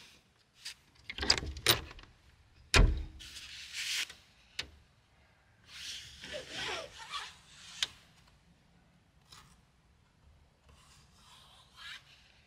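Sliding side windows of a Chevy conversion van being unlatched and slid open: a run of sharp latch clicks, the loudest a little under three seconds in, and stretches of the glass scraping along its track, with softer clicks later.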